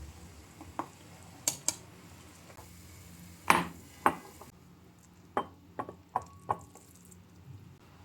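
Objects being handled and set down: a string of about nine sharp knocks and clinks, the loudest about three and a half seconds in.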